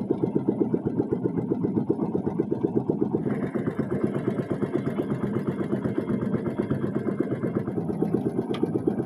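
Small engine running steadily, a rapid even train of firing pulses, its note a little fuller from about three seconds in.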